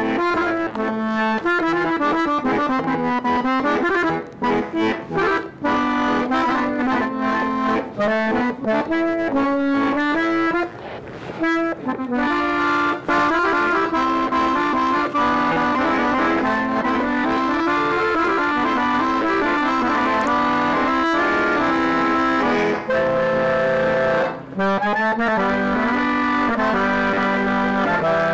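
Solo button accordion playing a conjunto tune: quick runs of melody notes over a held lower line, with a few brief breaks, the longest about eleven seconds in.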